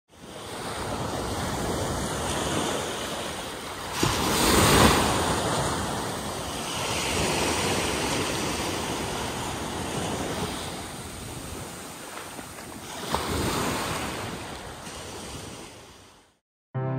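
Sea surf breaking and washing up a sandy beach, a steady rush with two bigger surges, about four seconds in and again around thirteen seconds. It fades out shortly before the end.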